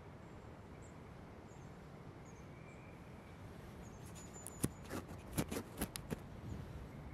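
Quiet outdoor ambience: a steady low rumble with thin, high chirps of small birds in the background. Four or five seconds in comes a quick run of sharp clicks and knocks, the loudest sounds here, from an unseen source.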